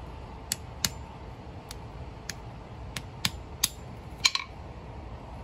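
Claw hammer tapping a cinnamon apple sapote (Pouteria hypoglauca) seed against concrete to crack its hard seed coat: about eight sharp taps at irregular intervals, the loudest a quick double knock just past four seconds.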